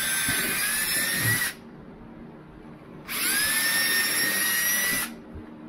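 RIDGID cordless drill running in two bursts of about two seconds each, the second starting about three seconds in, its motor whine rising slightly in pitch as it spins up, while it drills through the plastic bumper panel for rivets.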